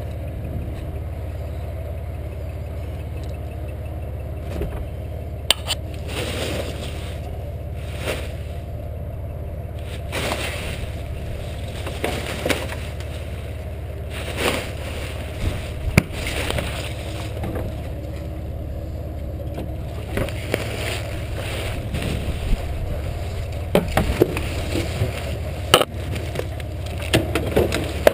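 Steady low engine hum, with intermittent rustling of plastic, clatter and sharp knocks as a recycling bin's plastic lid is lifted and bags and scrap inside are handled; the knocks come more often near the end.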